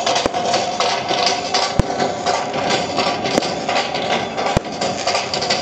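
Fireworks going off: continuous dense crackling, with four sharp bangs from shells bursting.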